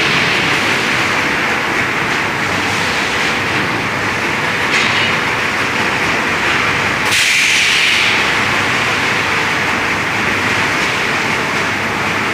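Steady, loud din of industrial presses running on a factory floor. A sharp hiss breaks in about seven seconds in and lasts about a second, with a weaker one a little before five seconds.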